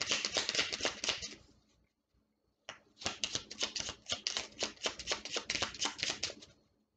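A deck of reading cards shuffled by hand: quick runs of crisp card clicks. The shuffling stops about a second and a half in and starts again with a sharp snap about a second later.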